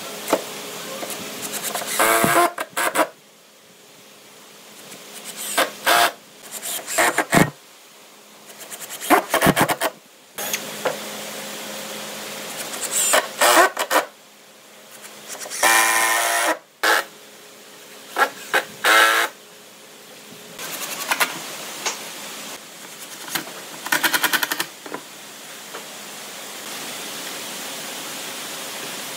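Workshop power tool running in short bursts of about a second, with clicks and knocks between the bursts, over a faint steady hum.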